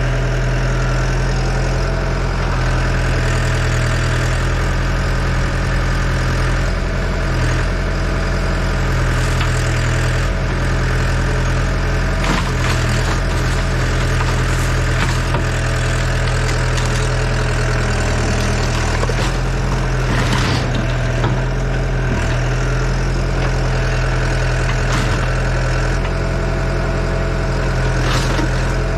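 Yanmar ViO80 excavator's diesel engine running steadily, with a few sharp knocks and cracks heard over it.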